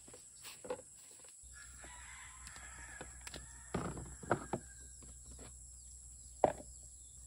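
A plastic basin set down on a concrete slab and handled: a few short knocks about four seconds in and one sharp knock near the end, with birds calling faintly in the background.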